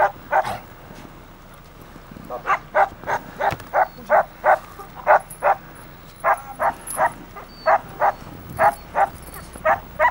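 Harnessed sled dogs barking over and over, short sharp barks at about three a second after a brief lull near the start.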